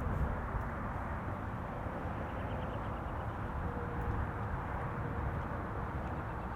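Steady road and tyre noise inside the cabin of a 2020 Toyota Highlander Hybrid while driving.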